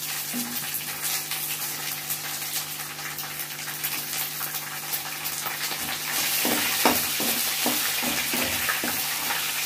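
Green chillies, bay leaves and mustard seeds sizzling and crackling in hot mustard oil in a wok. In the last few seconds the sizzle grows louder as a spatula stirs and knocks against the pan.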